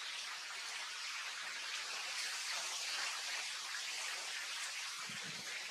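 Steady outdoor background hiss, even and unbroken, with a few faint low rustles near the end.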